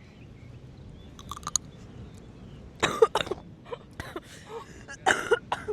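A person coughing in three short fits, the loudest in the middle.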